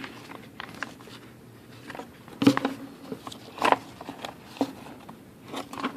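Paper magazine being handled and its pages turned: a few short, sharp paper rustles and flaps, the loudest about two and a half seconds in and another just after three and a half seconds.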